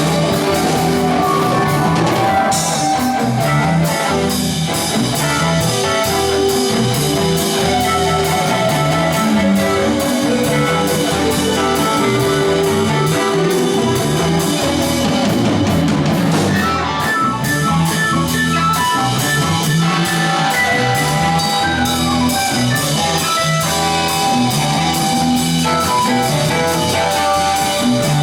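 Live rock band jamming in a studio: a drum kit keeps a steady beat under guitar, bass guitar and keyboard.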